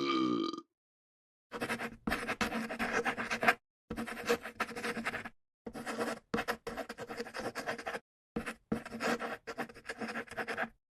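The tail of a deep human burp fades out in the first half-second. Then comes a series of scratchy, crackling rubbing bursts, about six of them, each starting and stopping abruptly with dead silence between.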